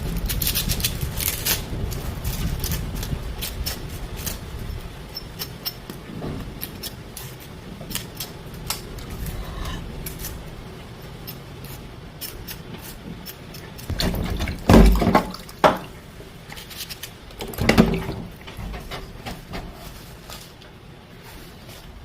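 Rain starting to fall: a rushing hiss and many scattered drops ticking and pattering, the rush easing after the first few seconds. Two heavy thumps come about 14 and 18 seconds in.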